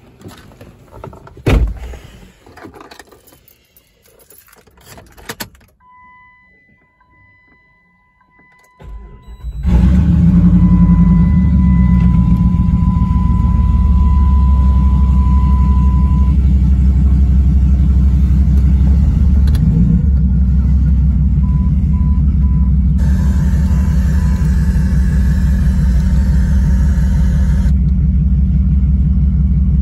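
Handling and knocks from getting into the Jeep Grand Cherokee ZJ, then a warning chime. About ten seconds in, the full-bolt-on 5.9-litre Magnum V8 starts and runs loud and steady at idle with an even low pulse; a chime tone and a few short beeps sound over it, and a hiss joins for a few seconds near the end.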